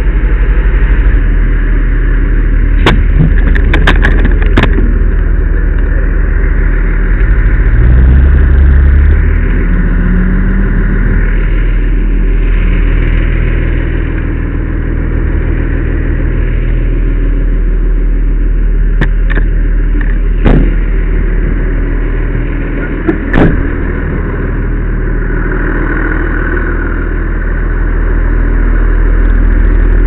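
Fire engine's engine running steadily, rising briefly in pitch about eight seconds in, with a few sharp knocks and clicks a few seconds in and again past the middle.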